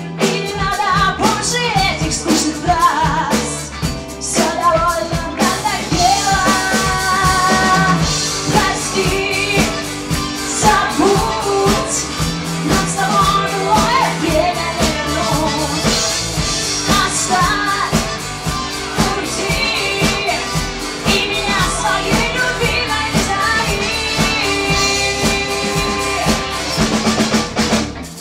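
Rock band playing live: electric guitar leading an instrumental passage over bass guitar and drum kit, with no sung words. The music breaks off briefly at the very end.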